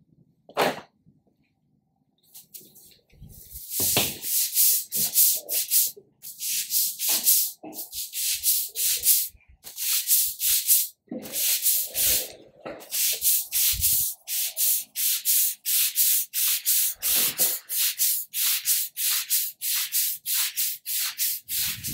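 Stiff push broom scrubbing degreaser into a wet concrete floor, bristles rasping back and forth at about two strokes a second. The scrubbing starts a few seconds in, after a short quiet spell with a single knock about a second in.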